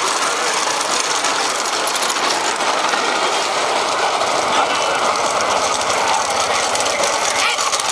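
Bullock carts racing along a road: a steady, loud rattling clatter of cart wheels with a rushing noise.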